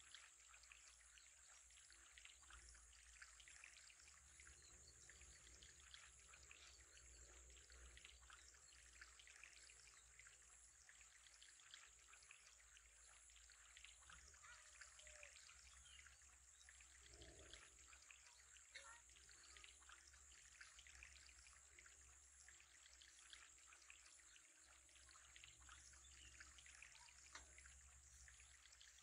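Faint trickling and bubbling of water in an aquarium, a fine continuous patter, over a low steady hum.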